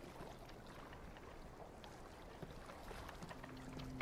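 Faint water ambience around a wooden fishing boat, a low even wash with a few small soft knocks. A low steady tone comes in near the end.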